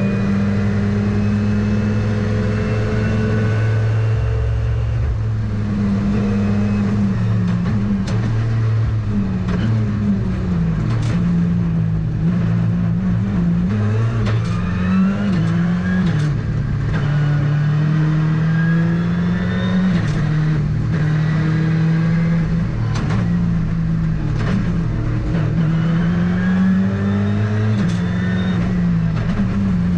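Ford Fiesta R5 rally car's turbocharged four-cylinder engine heard from inside the cockpit at stage speed, revving up and dropping back again and again through fast gear changes, with sharp cracks now and then.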